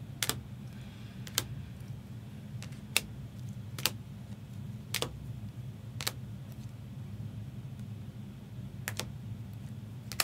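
Single key clicks on a computer keyboard, about one a second with a longer pause in the middle, over a steady low hum.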